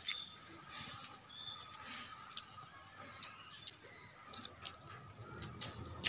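Small birds chirping outdoors in short, scattered calls over a faint steady background.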